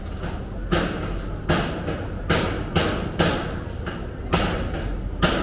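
A run of seven heavy thumps at uneven intervals, each with a short ring after it, over steady street noise.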